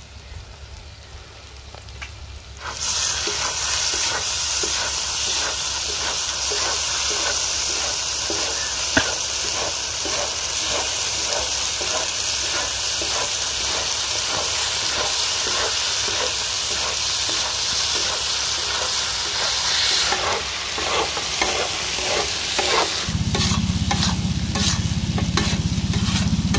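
Duck pieces in a thick masala gravy sizzling on a large tawa while a metal spatula scrapes and turns them. This is the final frying stage, just after pepper powder goes in. The sizzling starts loudly about three seconds in, and the scraping strokes stand out more clearly near the end.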